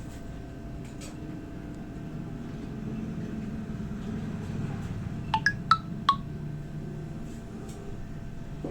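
Four quick, ringing metallic clinks in a row, each at a different pitch, over a steady low background rumble.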